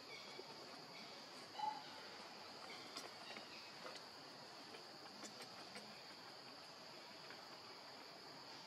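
Faint, steady high-pitched insect drone from the surrounding woodland, with one short chirp about one and a half seconds in and a few faint clicks.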